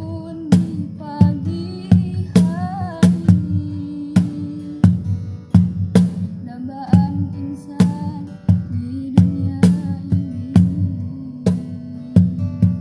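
Medium wooden cajon (box drum) played with the hands, keeping a steady beat of deep bass thumps and sharp slaps, under a strummed acoustic guitar and a young woman singing a slow pop song.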